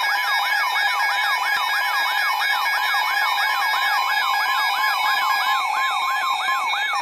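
Weather radio alert siren wailing in fast, even up-and-down sweeps, about three and a half a second, over steady electronic tones. It signals an incoming severe thunderstorm warning broadcast.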